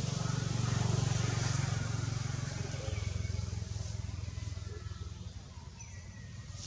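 Low, steady engine rumble of a motor vehicle, loudest about a second in and easing off after about three seconds.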